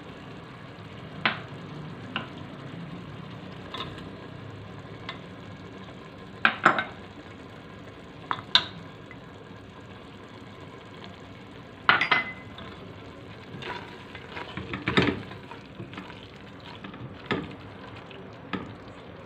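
A silicone spatula scrapes and knocks against the sides of a metal pressure cooker pot as a thick mashed-cauliflower masala is stirred, in a scatter of short sharp scrapes. Under it the mixture fries in oil with a steady low sizzle.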